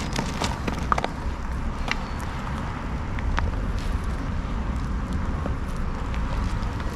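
Steady low wind rumble on the microphone, with a few scattered small snaps and clicks, one a little louder about a second in.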